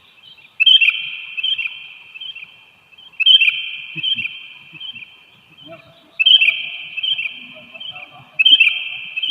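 Sooty-headed bulbuls calling: four loud bursts of quick, repeated chirping notes, each lasting about two seconds, a few seconds apart.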